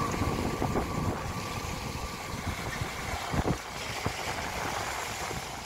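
Small waves washing in and out over a sandy beach, with wind gusting on the microphone and a few sharp buffets about three and a half and four seconds in.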